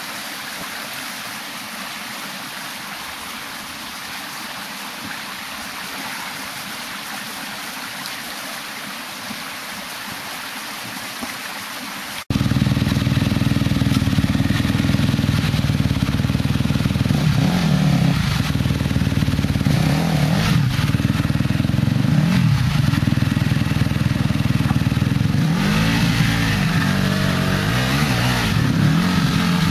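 Water running over the rocks of a creek, then, after an abrupt cut about twelve seconds in, an off-road motorcycle's engine revving hard, its pitch rising and falling again and again as the bike struggles up a rocky stream bed.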